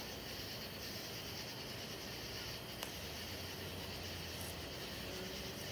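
Steady chorus of night insects chirping, with a single faint click about three seconds in.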